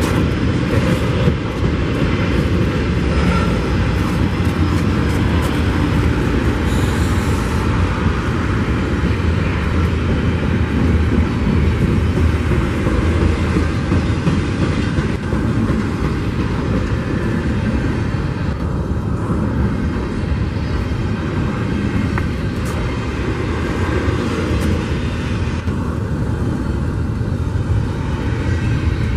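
Norfolk Southern double-stack container train rolling past close by: a steady, loud rumble of its wheels on the rails.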